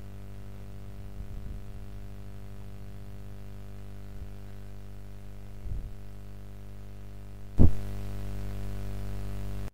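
Steady electrical mains hum with its overtones and a hiss on the recording. A short pop comes about seven and a half seconds in, after which the hum is louder, and it cuts off suddenly at the very end.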